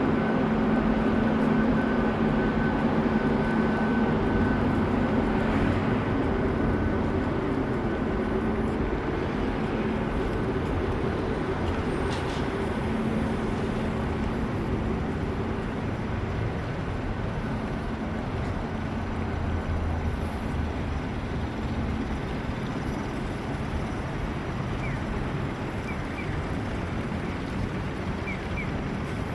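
A steady mechanical or vehicle hum over a constant rushing noise. It carries a low tone and a faint higher whine that fades out about a third of the way through.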